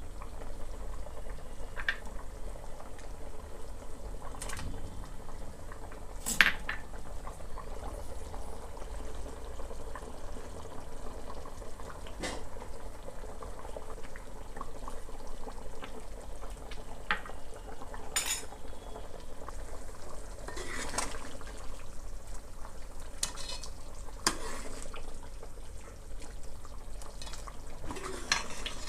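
A metal spoon stirring curry in a cooking pot, clinking against the pan every few seconds over a steady low hiss of cooking. The loudest clink comes about six seconds in.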